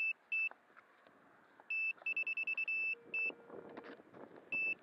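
High-pitched electronic buzzer on an RC model beeping in a repeating pattern. Each group is a short beep, a fast run of rapid beeps, then another short beep, and the group comes round about every three seconds. Soft rustling from the model being handled fills the gaps.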